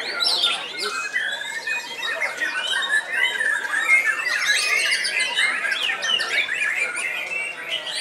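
White-rumped shamas (murai batu) singing together: a dense, unbroken chorus of overlapping whistles, trills and chirps.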